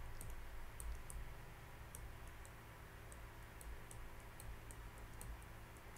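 Faint, irregular short clicks, a few a second, from a stylus tapping as words are handwritten on a digital whiteboard, over a steady low room hum.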